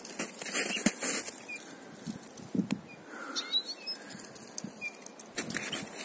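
A bird caught in a fine trapping net flaps its wings in struggling bursts, rustling against the net, with a quieter spell in the middle. A few faint, short high bird chirps come in the middle.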